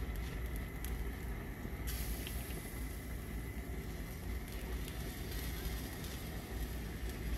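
Steady low rumble with an even hiss over it, and a few faint light clicks.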